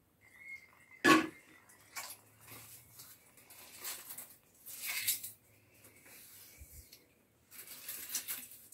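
Soapy hands rubbing and sliding along palm leaves, making irregular rustling swishes, with one sharp click about a second in.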